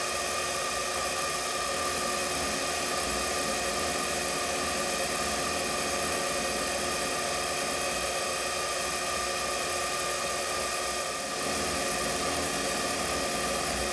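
A mini lathe running steadily with its motor and gears giving a constant hum and whine, while a carbide tool faces the end of a turned bushing.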